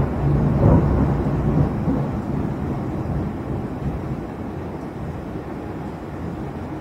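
Thunder rumbling low and slowly fading away.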